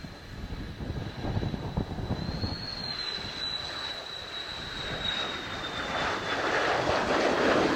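Mitsubishi F-2 fighter jet's turbofan running: a high whine slowly falling in pitch, with a rushing jet noise that swells near the end. Strong gusty wind buffets the microphone throughout.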